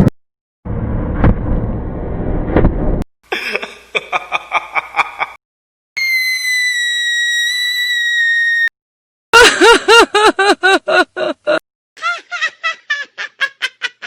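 A string of separate horror sound effects cut abruptly one after another. First comes a noisy rumbling stretch with a few knocks. Then a rhythmic series of pitched pulses, and a high eerie tone held for a few seconds that slides slightly down. It ends with two runs of rapid pitched pulses, the second fainter.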